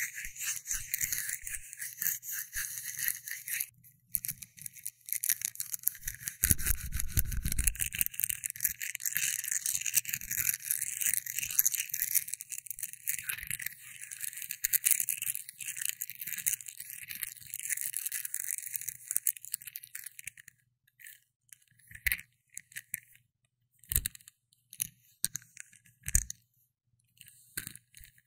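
Close, dense scratchy rustling full of fine crackles, with a brief low rumble about six seconds in. It stops about two-thirds of the way through, leaving a few separate light taps roughly two seconds apart.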